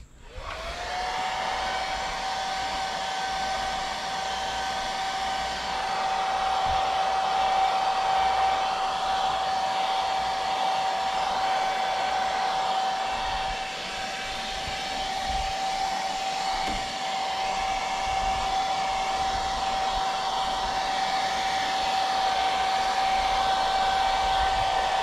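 Hand-held hair dryer switched on and running steadily: its motor whine rises as it spins up in the first half second, then holds at one pitch over the rush of air. It is drying fresh airbrushed acrylic paint on a fishing lure.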